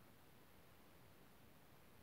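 Near silence: a faint, steady hiss of room tone.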